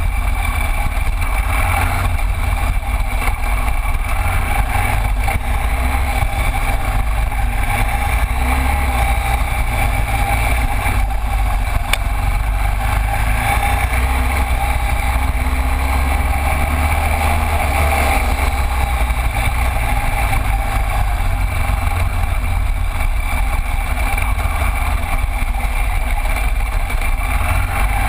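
Cagiva Elefant 900 motorcycle ridden slowly, its V-twin engine running steadily with a deep, even rumble.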